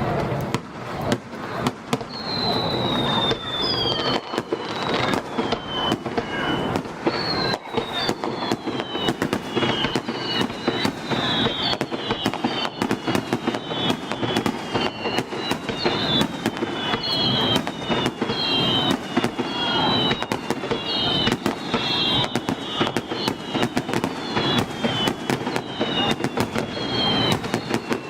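Fireworks display going off in a dense barrage of rapid bangs and crackling. From about two seconds in, many overlapping high whistles that fall in pitch sound over it.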